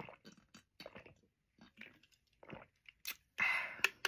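Close-miked gulps of carbonated soda drunk from a can: a run of short, separate swallowing sounds. Near the end comes a short breathy rush of noise with a few clicks.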